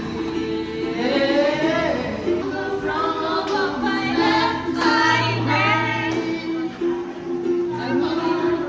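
Background music with singing voices over it.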